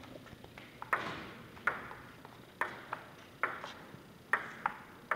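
Table tennis rally: the celluloid ball clicks sharply off the paddles and bounces on the table, about ten hits in a back-and-forth rhythm starting about a second in. Each click rings briefly in the echoing gymnasium.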